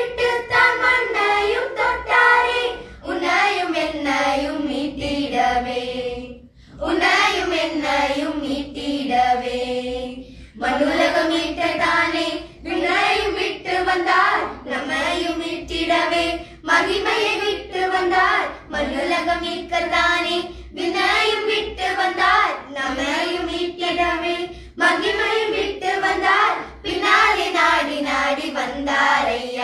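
A group of girls singing a Tamil Christian devotional song together in unison, in sung phrases of one to two seconds with short breaths between them.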